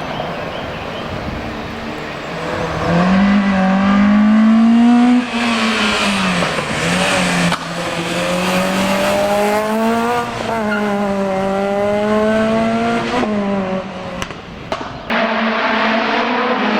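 Race car engine at full effort through a slalom, its revs climbing and falling repeatedly, with several sudden drops in pitch where the driver shifts gear or lifts off the throttle for a chicane.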